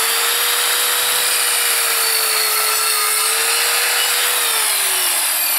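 Evolution R210SMS sliding mitre saw's 1500-watt motor running at full speed while its blade cuts through a wooden board on a bevel. Near the end the trigger is released and the motor winds down, its whine falling in pitch.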